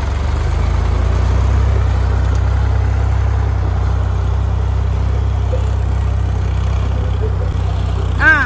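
Tractor diesel engine running steadily while it pulls a cultivator across a field. Near the end, a short sound that rises and falls in pitch cuts in briefly over it.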